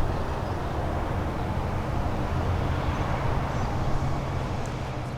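Steady low rumble of vehicle traffic under a broad outdoor hiss.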